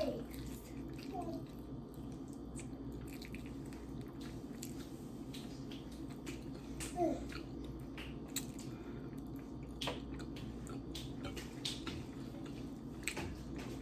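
Eating sounds: chewing, with scattered short mouth clicks and smacks, over a steady low hum of room noise.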